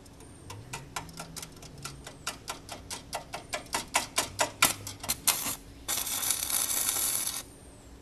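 Welding on a lawnmower's chain tensioner: a run of short, sharp arc crackles that come quicker and quicker, then a steady crackling weld lasting about a second and a half.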